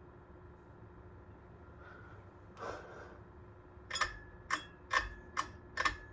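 A Hunter ceiling fan's motor humming faintly on low speed. In the second half come five sharp, ringing clinks, about two a second, louder than the hum.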